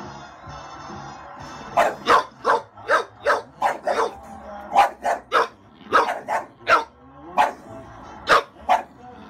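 English bulldog barking excitedly in quick runs of short, sharp barks, about seventeen of them starting about two seconds in, over music playing from a TV.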